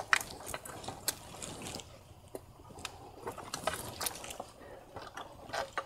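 Irregular small plastic clicks and light knocks as hands work a wiring connector and shift the loosened intake manifold on a VW 2.0T TSI engine, with the loudest click right at the start.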